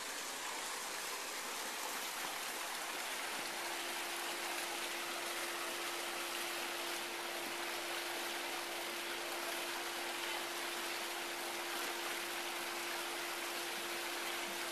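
Water running steadily down a rock water slide, an even rushing sound, with a faint steady hum coming in a few seconds in.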